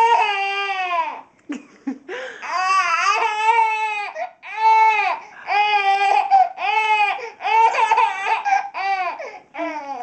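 Baby giving a string of loud, high-pitched squealing calls, each about a second long with short breaks between. The baby is smiling throughout, so these are excited, happy squeals rather than crying.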